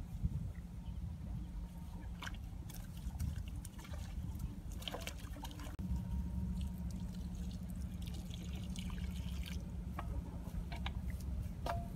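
Shallow muddy water trickling and splashing as hands work in it, with scattered light clicks and knocks over a steady low rumble.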